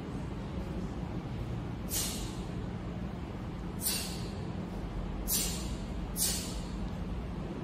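A taekwondo practitioner's sharp, hissing exhalations, one with each technique of the pattern, four times in a few seconds over steady low room noise.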